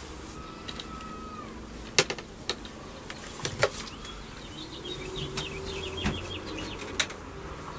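Honeybees buzzing around a hive as a plastic bucket feeder is lifted off the wooden inner cover, with a few sharp knocks and clicks from the handling, the loudest about two seconds in.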